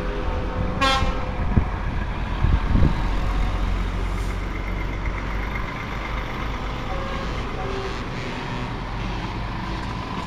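Heavy trucks' diesel engines rumbling as a convoy of lorries passes, with one short horn toot about a second in.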